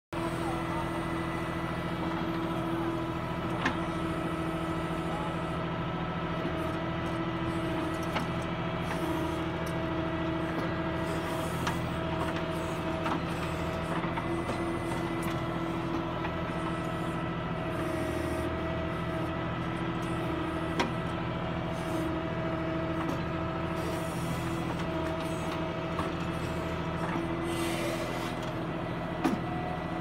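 Bull backhoe loader's diesel engine running steadily under load while the backhoe digs, with a whine that comes and goes as the arm works. A few sharp knocks are scattered through it.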